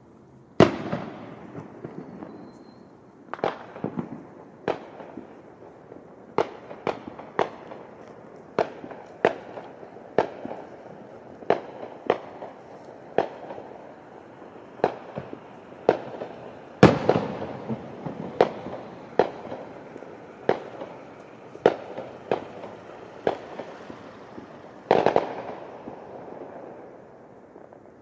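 Fireworks going off: a long, irregular series of sharp bangs, roughly one a second, each trailing off in an echo. The loudest come just after the start, about two-thirds of the way through, and near the end.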